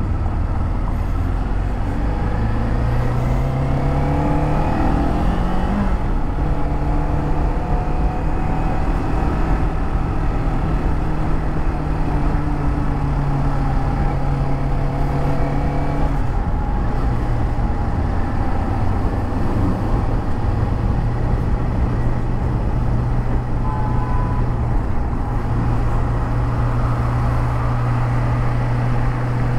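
Kawasaki Z400's parallel-twin engine pulling up through the revs over the first few seconds, then running at a steady pitch. About halfway through the pitch drops a step, and it runs steadily on at the lower note.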